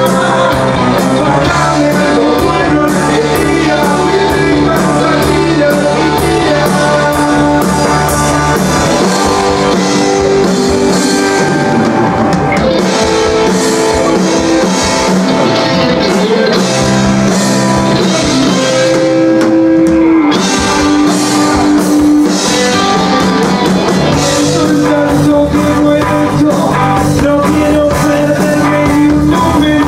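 A rock band playing live: electric guitars, bass and a drum kit, with a man singing into the microphone over them.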